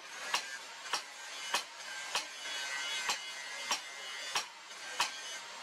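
Hammer striking red-hot steel on an anvil in a steady rhythm, a little under two blows a second, as a blade cut from rusted car steering parts is forged.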